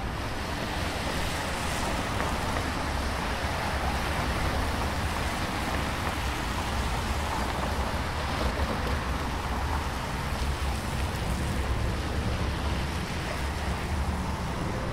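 Steady downtown street traffic: cars passing over wet, slushy pavement, their tyres hissing in an even wash of noise with a low rumble underneath.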